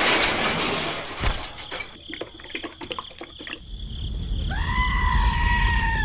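The tail of an explosion dies away, followed by scattered small clicks as debris and sand land. Then a low engine rumble builds, and a held high-pitched call rises at its start and drops off near the end.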